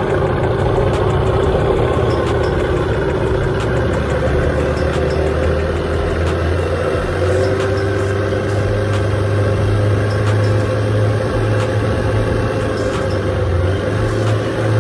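Small tiller-steered outboard motor on an aluminium jon boat, running steadily with the boat under way; the low drone firms up about halfway through.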